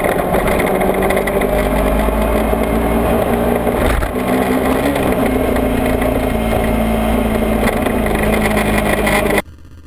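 Sport motorcycle running at road speed, with the engine's steady note under wind rush on the mounted camera. The engine note shifts and the level dips briefly about four seconds in. The sound cuts off abruptly near the end.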